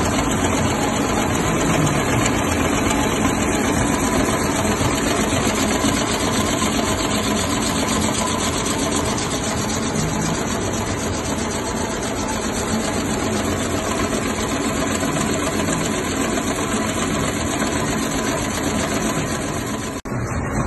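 Narrow-fabric looms and textile production machinery running steadily, a dense, rapid mechanical clatter. It cuts out for an instant near the end.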